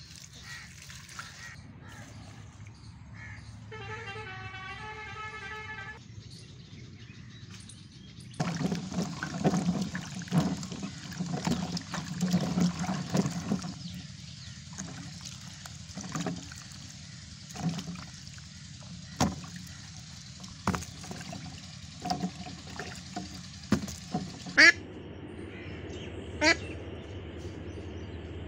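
Water splashing and sloshing as hands wash green mangoes in a steel bowl of water, with scattered knocks. Near the end come a couple of sharp duck quacks, the first the loudest sound here.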